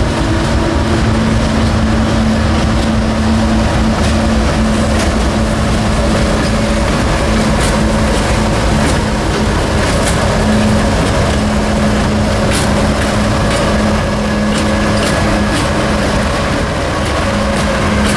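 CSX diesel locomotives passing close by, engines running with a steady low drone over the rumble of wheels on the rails and scattered sharp ticks from the track.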